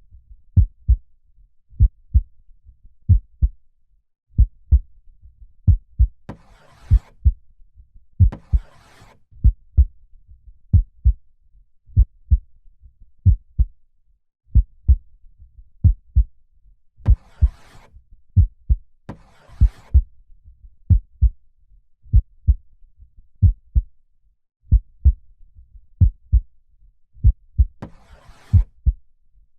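Steady heartbeat, a run of soft low thumps that fall in lub-dub pairs. Slow breathing, a noisy breath in and a breath out, comes about every eleven seconds, three times in all.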